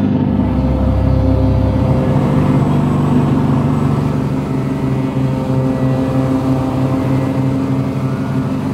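A ferry's engines running underway, a steady low drone with an even pulse, over water rushing in the ship's wake.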